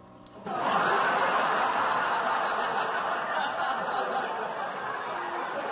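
Studio audience laughing, breaking out about half a second in and carrying on as one long laugh that slowly dies down.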